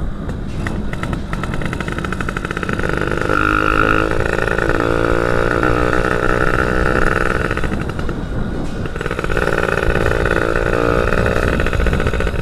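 Suzuki F1ZR two-stroke motorcycle engine running on the road, revving up in two stretches with its pitch wavering, over wind rumble on the microphone.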